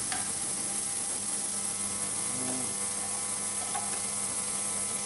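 Steady electrical hum and hiss of workshop equipment, with a few faint clicks of small metal injector parts being handled in a bench holder.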